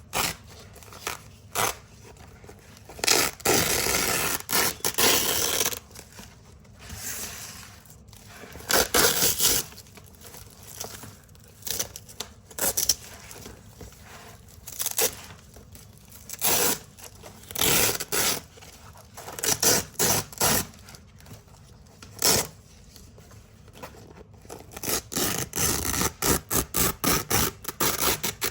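Hook-and-loop (velcro) strips being ripped off a roll, in a series of crisp, crunchy tearing sounds. Some pulls are long and drawn out, others come as quick bursts of short rips, with a fast run of them near the end.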